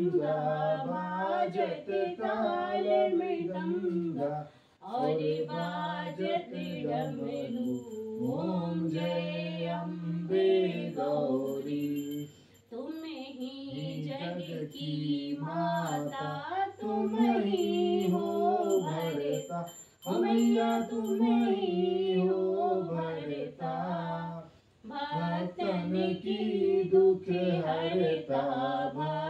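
A voice singing a devotional puja hymn unaccompanied, in long phrases broken by brief pauses. A small bell rings faintly and rhythmically through the middle stretch.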